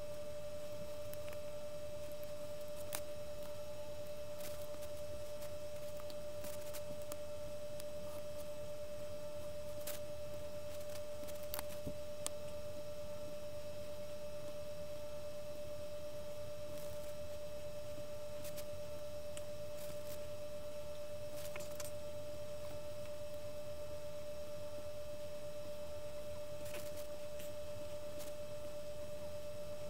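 A steady pure tone, unchanging throughout, over faint scattered ticks of an X-Acto knife cutting glossy sticker paper on a cutting mat.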